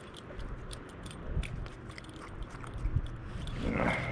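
Soft crackling rustle and scattered small clicks as a gloved hand handles a small bream that is still on stinger hooks.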